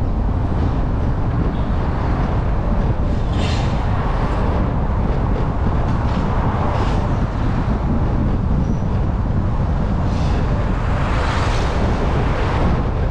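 Road traffic noise: a steady low rumble with the hiss of passing vehicles swelling about three and a half seconds in, again around seven seconds, and more broadly from about ten to twelve seconds.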